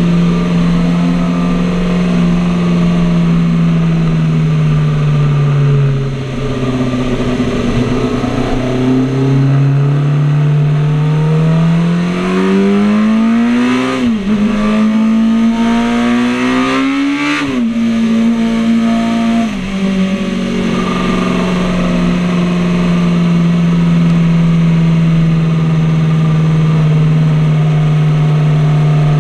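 Classic motorcycle's engine heard from the rider's seat. It runs steadily, then pulls hard with its pitch climbing, breaks sharply twice at upshifts about halfway through, drops again a couple of seconds later and settles into a steady run.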